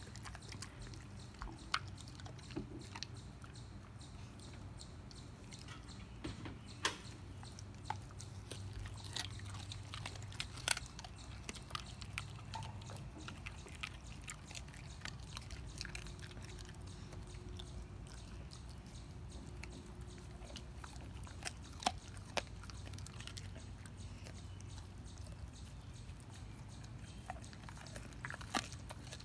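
German Shepherd gnawing and chewing a raw beef rib, with irregular sharp cracks of teeth on bone scattered among the wetter chewing.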